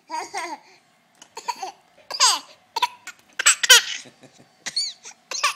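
A young child's fake laugh-cough: a string of short, separate bursts of laughter, some with high squealing pitch that falls steeply, others breathy and cough-like.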